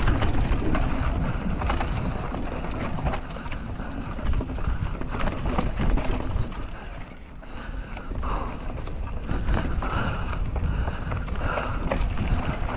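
Mountain bike ridden over a trail: wind rumbling on the microphone, with tyre noise and many short clicks and rattles from the bike.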